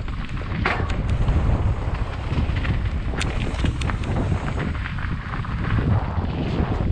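Wind buffeting a helmet-mounted camera's microphone on a fast mountain bike descent, over the rumble of tyres on a dirt trail, with a few sharp clicks and knocks from the bike and trail.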